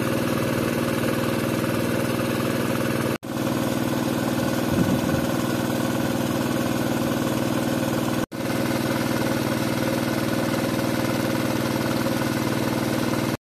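Small petrol engine driving a water pump, running steadily at constant speed while it draws water from a stream. The sound cuts out for an instant twice.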